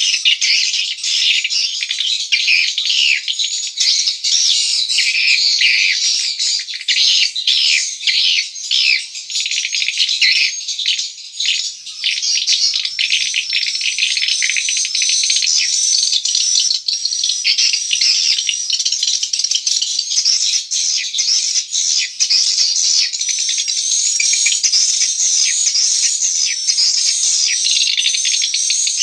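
Dense, continuous chorus of swiftlet twittering: overlapping high chirps mixed with rapid clicks, without a break.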